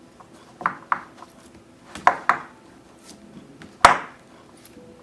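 A handful of short, sharp clicks or taps, most in pairs about a fifth of a second apart, with the loudest single one about four seconds in.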